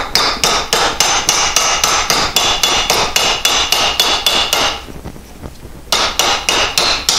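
Hammer blows on a sheet-steel patch piece held over a round bar in a bench vise, bending a curve into the metal: fast, even metallic ringing strikes, about four a second. The blows pause for about a second near five seconds in, then resume.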